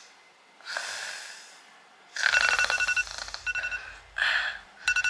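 A sleeper snoring, then a smartphone alarm going off about two seconds in: a loud repeating beep pattern over a low buzz from the phone vibrating against the bed. A short snort comes between the beeps.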